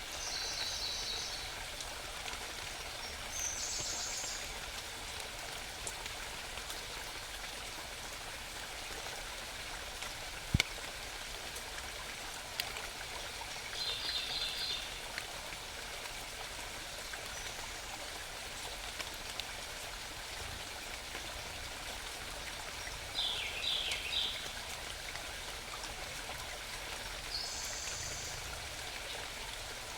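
Small mountain stream running steadily, with a songbird singing short, high-pitched phrases five times. A single sharp click about ten seconds in, and a fainter one shortly after.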